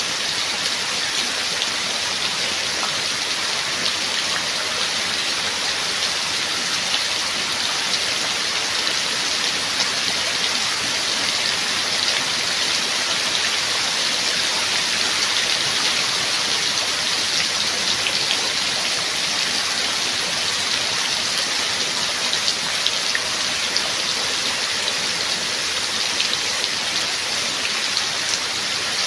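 Steady rain falling, an even hiss with many small drop taps.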